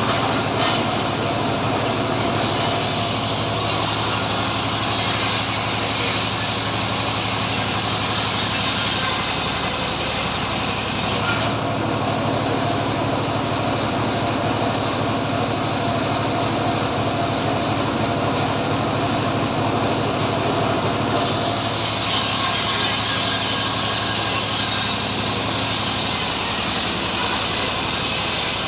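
Homemade engine-driven circular sawmill running steadily. A harsher, brighter high-pitched noise swells up from about two to eleven seconds in, and again from about twenty-one seconds in, as the blade cuts through teak log.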